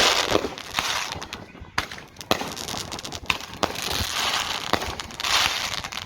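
Diwali firecrackers going off: sharp cracks at uneven intervals, with stretches of hissing spray from burning fireworks.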